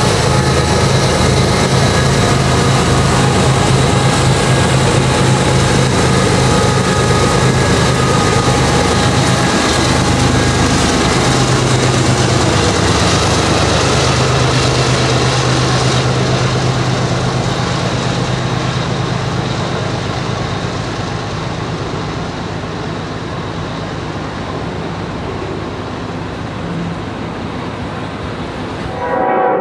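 BNSF diesel-electric freight locomotives passing close by, their engines droning steadily, followed by autorack freight cars rolling past on the rails. The engine drone fades out through the middle, and the rolling noise slowly grows quieter.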